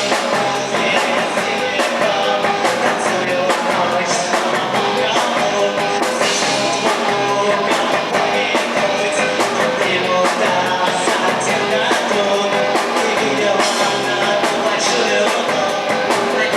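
A rock band playing live at full volume, with a steady drum kit beat and singing.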